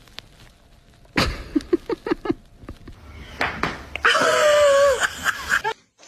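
A sharp knock, a run of short clipped sounds, then a loud, drawn-out cry that falls in pitch and cuts off suddenly.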